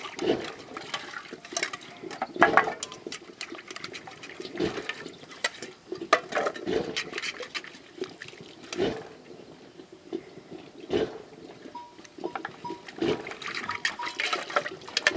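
Water sloshing and pouring as metal bowls are rinsed by hand, with repeated clinks and knocks of the bowls against each other and the ground.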